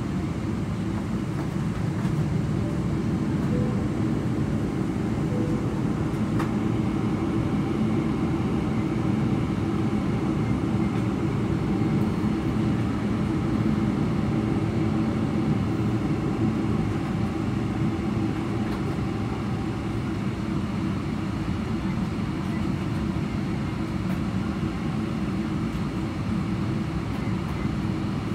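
Cabin noise of a Boeing 777-300ER taxiing, heard from inside the cabin: its GE90-115B turbofan engines running steadily at low power, a constant low rumble with a steady hum.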